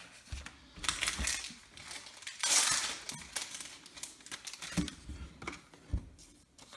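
Trading cards being handled and stacked on a table: light clicks and taps, with a brief rustling sweep about two and a half seconds in.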